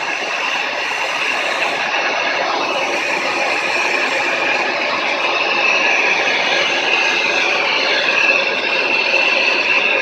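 A motorized machine running steadily, a loud, dense mechanical noise with no clear rhythm.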